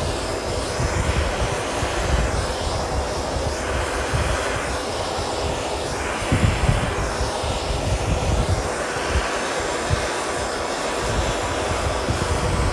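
Hose-fed hand-held gas torch burning with a steady rushing hiss over a low fluttering rumble, its flame playing on a steel body panel to heat it for leading.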